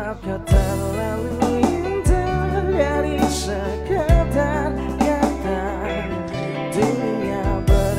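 Live band playing a song: a male vocalist singing into a handheld microphone over electric guitar, bass guitar and keyboard, with heavy low hits every couple of seconds.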